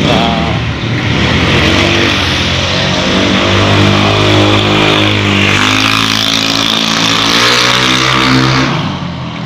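Road traffic: motor vehicle engines passing close by, loud, their pitch rising and falling, dying down about a second before the end.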